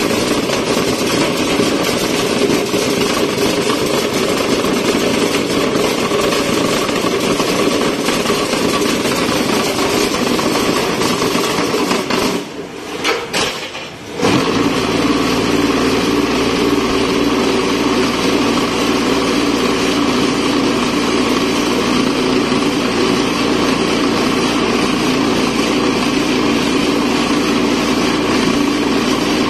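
DASWELL BMM 4-26 automatic concrete hollow-block machine running: a loud, steady mechanical din from its motors and press. The noise drops briefly about twelve seconds in and picks up again about two seconds later with a steadier low hum underneath.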